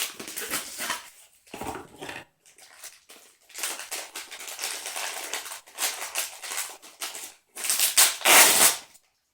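Plastic toy packaging being crinkled and torn open by hand, in irregular rustling bursts, loudest near the end.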